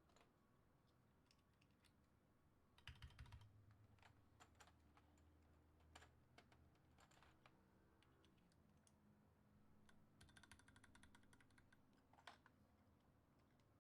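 Faint typing on a mechanical keyboard fitted with Maxkey SA-profile keycaps: scattered keystrokes, a small cluster about three seconds in, and a quick run of keystrokes about ten seconds in.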